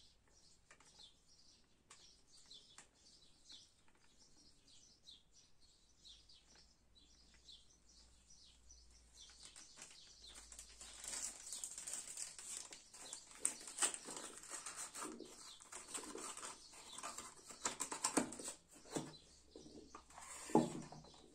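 Crinkling and rustling of a packet of cassia powder: faint as the last powder is shaken into a wooden bowl, then louder from about nine seconds in as the empty packet is crumpled and folded. Near the end a short scrape as the wooden bowl is moved on the table.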